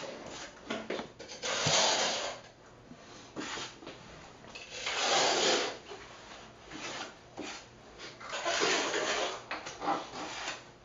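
A trowel scraping thinset mortar, scooping it from a bucket and working it onto the concrete slab, in three long scrapes with small knocks and clicks between them.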